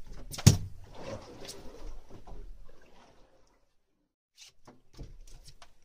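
Handling noise as a squid on a jig is brought in over a boat's gunwale: a sharp knock about half a second in, then scattered clicks and knocks. A second of silence follows after about three and a half seconds, then more clicks.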